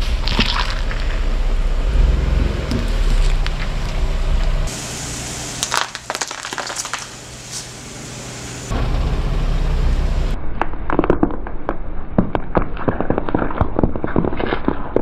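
Vegetables cracking and crunching under a slowly rolling car tyre, over a low rumble. In the last few seconds there is a dense run of sharp crackles as the tyre presses into a pale green gourd.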